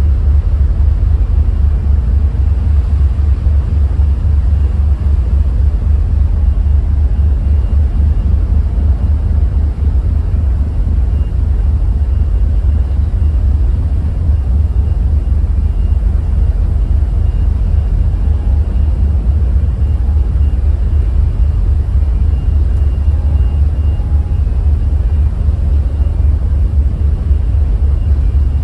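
Steady loud low rumble of a car ferry under way as it leaves its berth, heard from the open deck: the ship's engines and its propeller wash churning the water along the hull.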